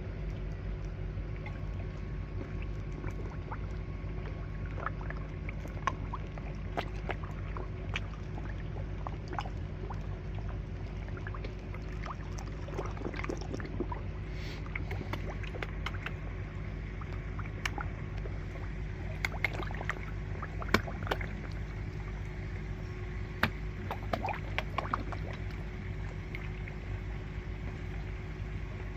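Koi slurping and splashing at the water surface as they take floating pellets: many short, scattered splashy pops, thickest and loudest in the second half. Under them runs a steady low hum.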